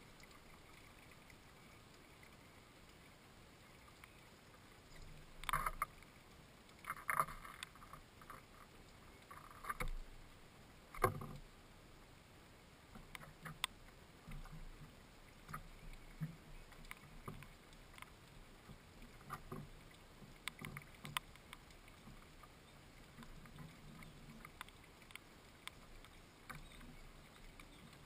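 Soft, irregular taps and scrapes of a house sparrow clinging to and pecking at a fat ball hung in a mesh net inside a wooden feeder, with a sharper knock about eleven seconds in, over a faint steady background hiss.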